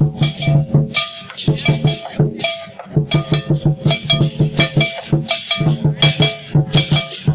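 Music with a quick, steady percussive beat of drum-like strikes over sustained pitched tones.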